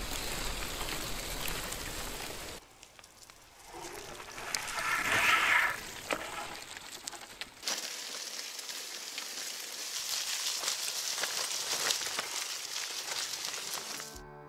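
Bicycle tyres rolling over a gravelly, leaf-covered dirt track, with small crunches and rattles from the loaded bike, in several short cuts. About five seconds in there is a louder, higher sound lasting about a second.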